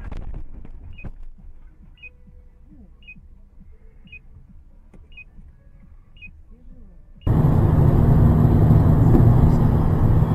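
Car collision ends in a crunch at the start, then a short high beep repeats about once a second for several seconds. About seven seconds in, this gives way abruptly to the loud, steady rumble of a car driving, heard from inside the car.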